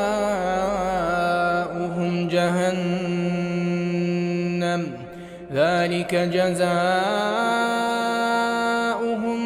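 Male Quran reciter chanting in slow melodic tajweed style, drawing the words out into long held, wavering notes. There is a short breath pause about five seconds in.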